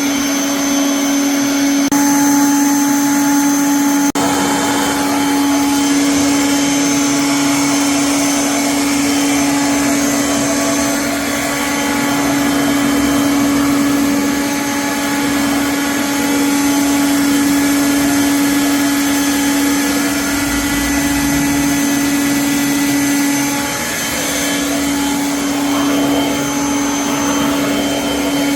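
Kirby vacuum cleaner running steadily, a loud motor hum with a constant whine over the rush of air, dipping briefly near the end.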